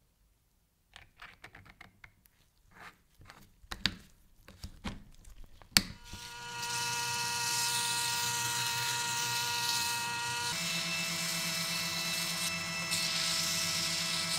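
Clicks and knocks as a screw is fitted into a cordless drill's chuck, ending in a sharp click; about six seconds in the drill motor starts spinning steadily, with sandpaper hissing against the spinning steel screw head. About ten and a half seconds in, the motor's tone changes.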